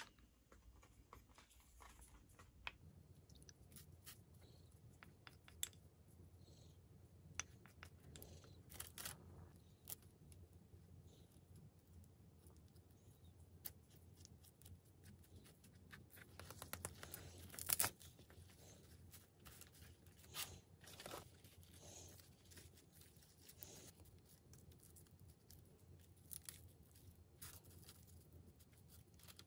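Faint food-preparation handling sounds as crusty bread, parchment paper and a wooden spoon spreading a creamy sauce are handled: scattered small crinkles and taps, with a sharper crackle about eighteen seconds in.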